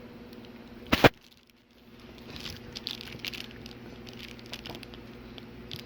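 Two sharp knocks about a second in, then a run of small crackling clicks from hands handling the TV's new LED backlight strips and their adhesive tape. A steady low electrical hum runs underneath.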